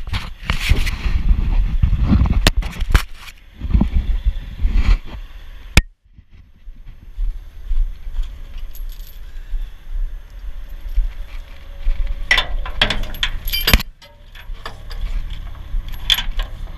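Heavy steel tow chain rattling and clanking as it is handled and hung against a truck's frame, in several bursts of metal-on-metal clinks, over a low steady rumble.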